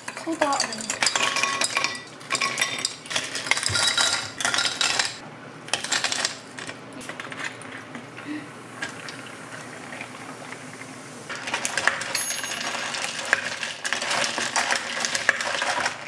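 Long metal spoons stirring and clinking against glass tumblers as powder is dissolved, then sparkling water poured from plastic bottles over ice in the middle, and more clinking of a spoon against ice and glass near the end.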